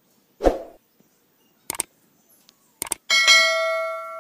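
Subscribe-button animation sound effect: a short swoosh, two quick double mouse clicks, then a bright bell chime that rings and slowly fades.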